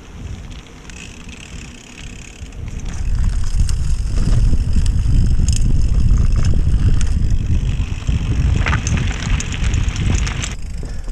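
Wind noise on the microphone and the rumble of a bicycle ridden over a dirt trail. It gets much louder about three seconds in, with scattered clicks, more of them near the end.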